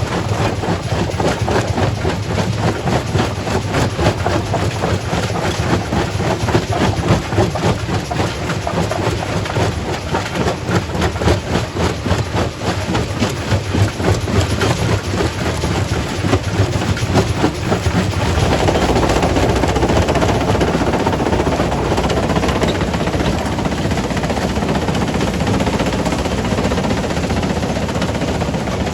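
Primary rock crusher running and crushing stone: a loud continuous rumble with rapid, irregular knocks and clatter of rock. About 18 seconds in the clatter gives way to a denser, steadier rush.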